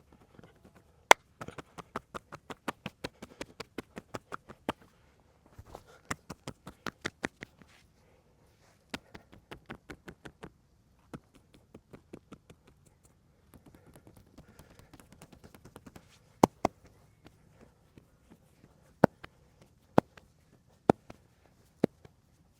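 Percussive massage by hand: runs of quick strikes on the body at about four to five a second, broken by short pauses, then a stretch of softer, denser strokes. In the last third come several single loud, sharp snaps.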